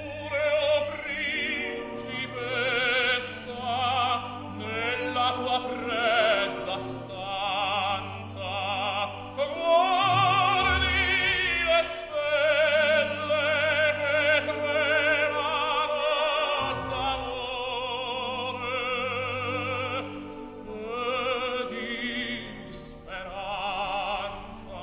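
Background music: operatic singing with strong vibrato over an orchestral accompaniment, with long held notes.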